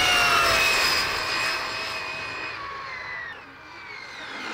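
Arrma Mojave 6S BLX 1/7 RC truck's brushless motor and drivetrain screaming by at full speed, a high whine over tyre hiss. The whine falls in pitch and fades as the truck moves away.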